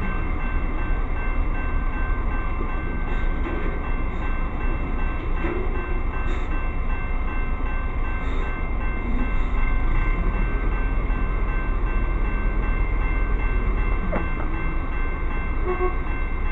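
Railroad grade-crossing warning bell ringing continuously, with a low steady rumble underneath.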